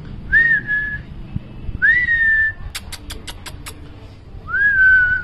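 A person whistling three short notes, each gliding up and then holding level, to call a puppy. Between the second and third note there is a quick run of sharp clicking sounds.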